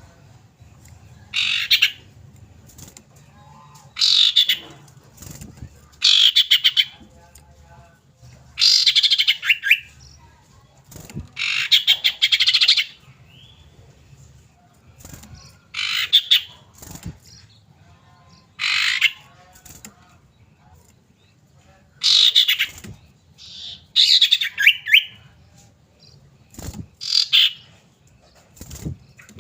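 Common iora calling: about a dozen short bursts of fast, high trilled notes, one every two seconds or so.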